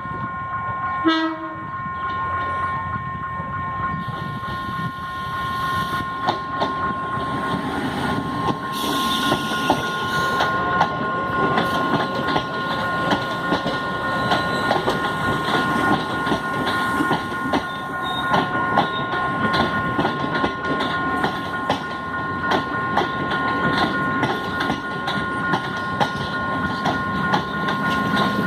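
Toshiba electric multiple-unit commuter train pulling into a station. A short horn blast sounds about a second in, then the wheels click rhythmically over rail joints as the train rolls in, over a steady high-pitched tone.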